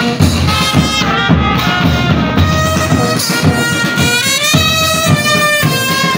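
Military brass band playing a march: trumpets and a sousaphone carry the tune in held notes over a steady bass-drum beat.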